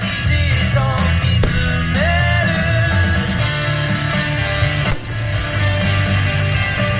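Pop-rock song playing loudly, with a singing voice over guitar and a full band.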